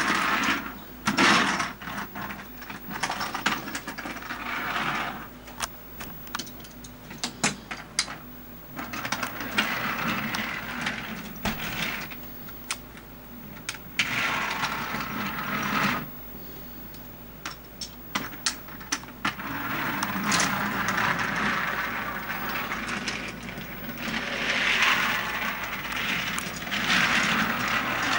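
Wooden toy trains being pushed along a wooden track: stretches of rolling rumble broken by many sharp clicks and knocks as the trains are set down and bump together.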